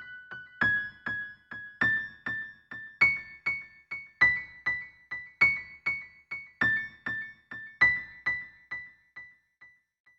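Slow, gentle piano-like keyboard music: high single notes, about two a second, each ringing and dying away. It fades out near the end.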